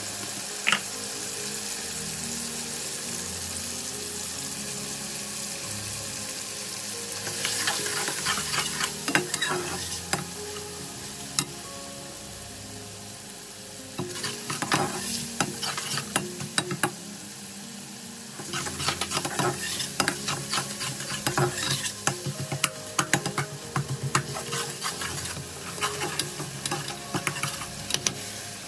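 Tomato, onion and green chilli masala sizzling in oil in a large pot. A spatula stirs it in spells, scraping and clicking against the sides of the pot.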